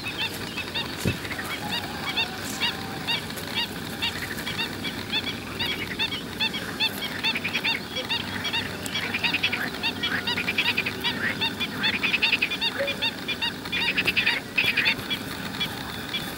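Pied avocets calling: many short repeated calls overlapping, several a second, growing busier and louder from about halfway.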